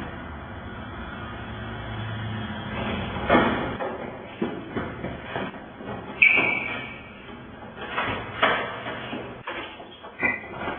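Doors opening and banging shut in quick succession, with a short high squeak about six seconds in and another near the end.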